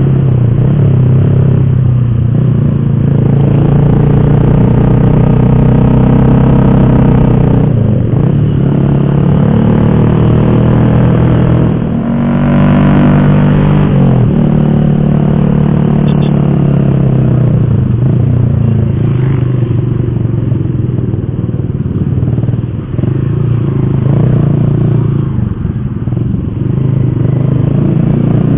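Motorcycle engine running while riding, its pitch rising and falling as the throttle opens and eases off.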